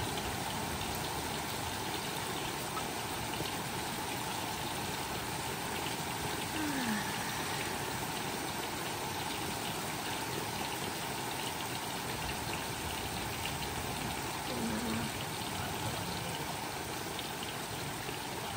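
Rain falling steadily during a thunderstorm, an even hiss with no thunderclap.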